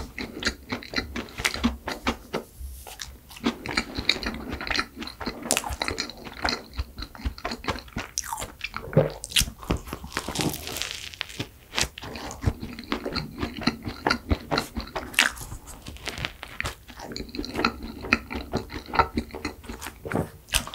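Close-miked biting and chewing of a flaky chocolate croissant filled with fresh cream: dense, irregular crunching and crackling of the pastry layers.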